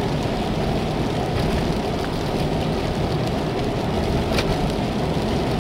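Steady rumble of a car's engine and tyres on the road, heard from inside the cabin.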